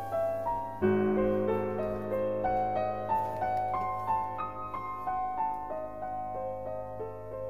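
Piano music: a gentle melody of single notes moving over held chords, with a fuller chord coming in about a second in.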